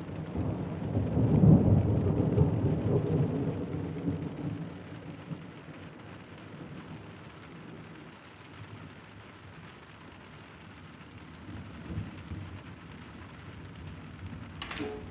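Rolling thunder that swells to a peak about a second and a half in and dies away over the next few seconds, over steady rain. A sharp click comes near the end.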